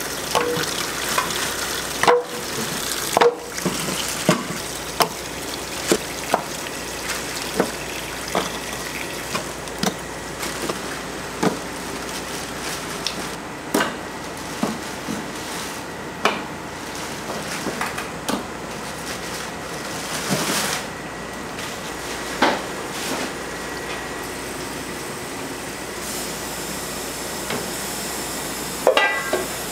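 Water running from a tap into a large aluminium stockpot, with repeated knocks and clunks as pork bones and meat are dropped in and handled, and a metal clatter near the end.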